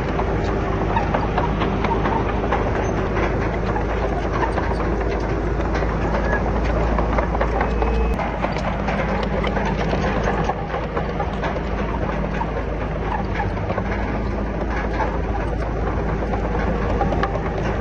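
Komatsu D31PX crawler bulldozer working: its diesel engine runs steadily under a continuous clatter and clank of steel tracks. The low engine note drops a little about halfway through.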